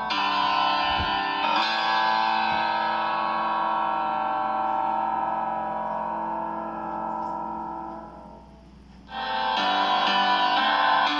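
Instrumental background music with long held chords; the chord fades away about eight seconds in and a new one starts about a second later.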